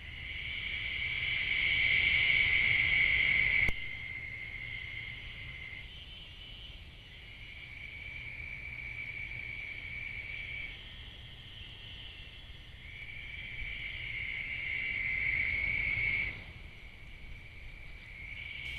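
Night-time insect chorus: a steady high trill that runs in stretches of a few seconds, stopping and starting again, loudest in the first few seconds before dropping away sharply.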